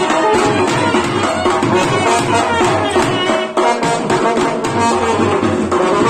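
A small live brass band playing a tune, with a trumpet and a baritone horn over a steady hand-held drum beat.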